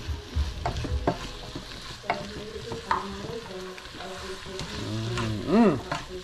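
A black plastic spoon stirring okra and chopped vegetables frying in a nonstick pot, scraping and clicking against the pot over a soft sizzle. About five and a half seconds in, a brief pitched tone rises and falls.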